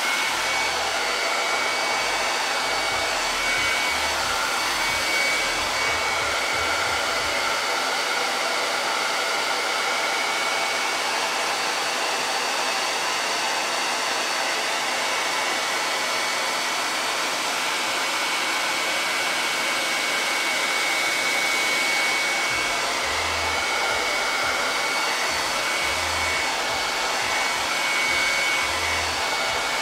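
Handheld hair dryer switched on and running steadily, a rush of air with a thin steady whine, blowing over a stencilled board to dry the chalk paste.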